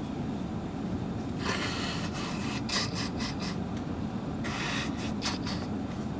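Steady low rumble of airliner cabin noise, with two stretches of rubbing or scraping, the first starting about one and a half seconds in and the second near the end.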